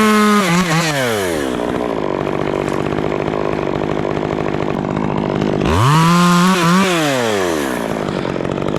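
Stihl chainsaw cutting limbs off a white fir: the engine revs high at the start, settles to a lower, steady pitch while the chain is in the wood, then revs up and falls away again about six seconds in.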